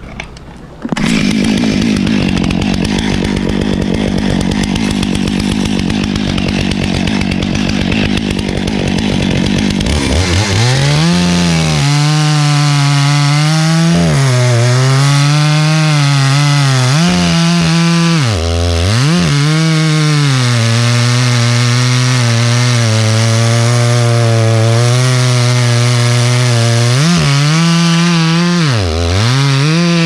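Stihl chainsaw running at high revs as it cuts into the thick-barked trunk of a shagbark hickory. The first third is a rougher, noisier sawing sound. After that comes a strong steady engine note that dips in pitch and recovers several times.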